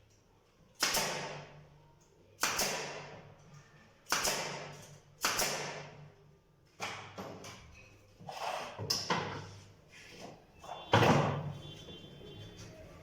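A series of sharp knocks on wood, about seven, roughly one every second and a half, each dying away quickly, with the loudest near the end.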